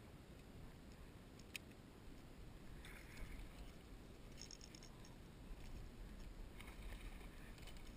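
Near silence: a faint low rumble, with a single sharp click about a second and a half in and a few light taps and ticks.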